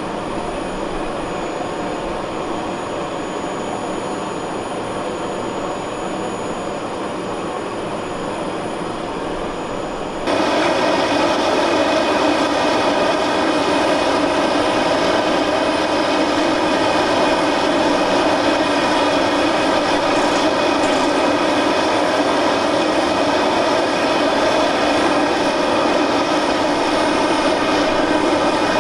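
Aircraft turbine engine running with a steady whine made of many held tones. About ten seconds in, it jumps abruptly louder and stays there.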